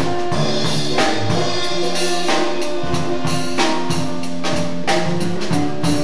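Live jazz band of saxophone, electric guitar, bass guitar and drum kit playing, with drum and cymbal strikes under held melody notes.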